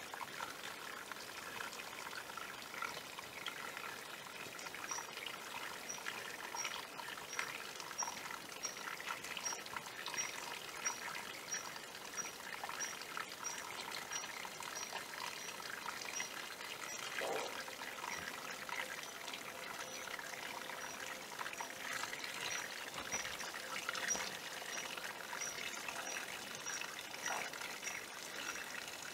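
A small hillside stream trickling and splashing over stones in a shallow channel, a steady, even trickle.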